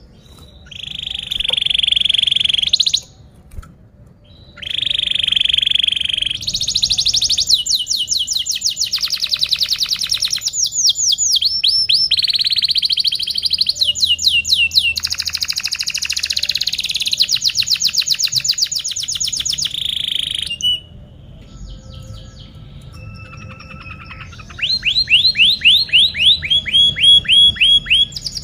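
Domestic canary singing a long song. Buzzy rolling phrases give way to long fast trills of repeated falling notes. A short lull with a few faint notes comes about three-quarters through, then another fast trill starts.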